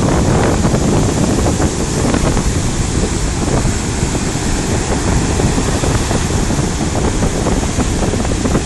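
Sea waves washing steadily onto a beach, with wind buffeting the microphone.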